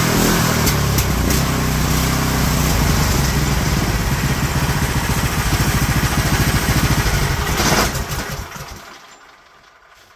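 BILT HARD 420cc single-cylinder gasoline engine running steadily on a bench, then switched off about eight seconds in and coasting down to a stop within about a second.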